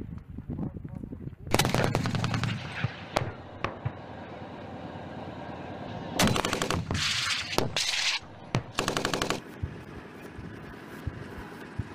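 Automatic gunfire: several rapid bursts about a second long each, with scattered single shots between them.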